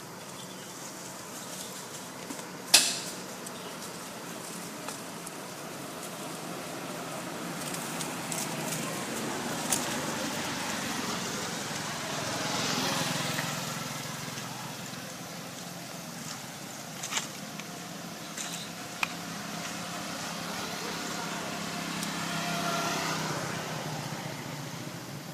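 Steady outdoor background noise that swells and fades twice, like something passing, with a few sharp clicks; the loudest click comes about three seconds in.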